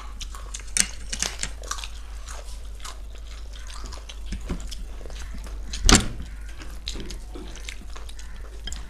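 Eating by hand, chowmein noodles and fried chicken: scattered short wet smacks and chewing clicks, with one louder sharp knock about six seconds in.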